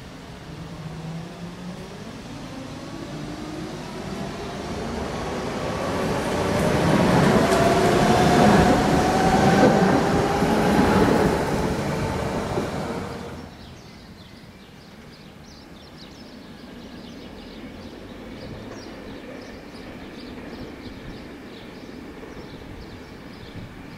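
Tatra KT8D5 articulated tram pulling away and passing close by: its traction motors whine in several tones that rise steadily in pitch as it accelerates, growing louder until the tram is alongside. About 13 seconds in the sound cuts off abruptly, leaving a much fainter steady background.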